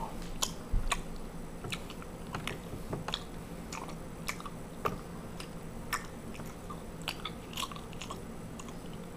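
A person chewing food close to the microphone, with irregular small crunches and wet mouth clicks.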